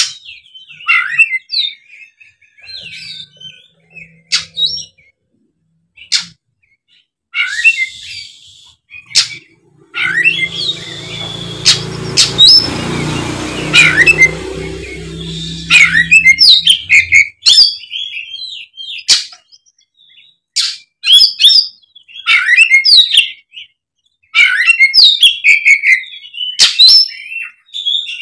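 Oriental magpie-robin singing in its agitated fighting mode: loud bursts of sharp, rapidly varied whistled phrases broken by sharp clicks, with short pauses between bursts. In the middle, for several seconds, a rushing noise with a low hum runs under the song.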